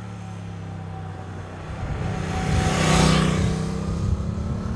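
Motorcycle riding past: its engine note and rushing noise build to a peak about three seconds in, then fade as it rides away.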